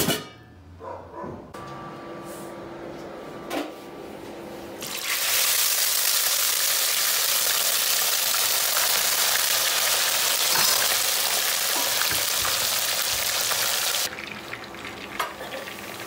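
Chicken pieces deep-frying in hot oil in a kadai: a loud, steady sizzle that starts about five seconds in and drops sharply to a quieter sizzle near the end. Before it come a few knocks and a faint hum as a refrigerator shelf is handled.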